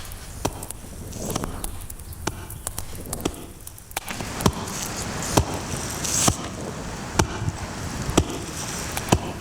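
A series of sharp knocks at an uneven pace of roughly one a second, over a steady background hiss.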